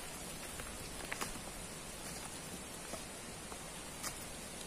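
Steady outdoor hiss with a few scattered sharp ticks, about a second in and again near the end.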